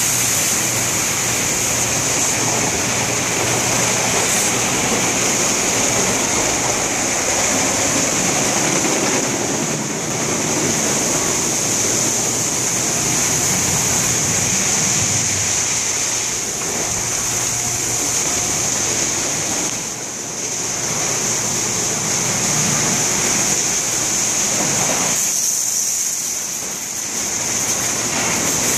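Automatic car wash tunnel at work: water jets spraying and brushes running over a van, a loud steady hiss of spray over a low hum of machinery. The spray noise dips briefly three times.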